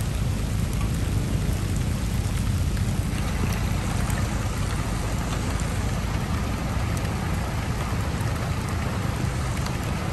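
Steady rain falling, with a constant low rumble underneath and a few faint ticks.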